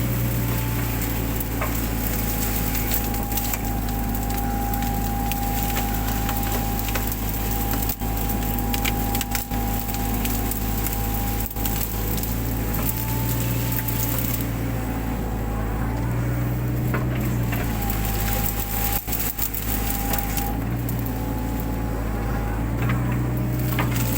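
Mini excavator's engine running steadily under load, with a held whine that shifts in pitch a few times, while the crackling and snapping of brush and branches being torn up and broken runs throughout.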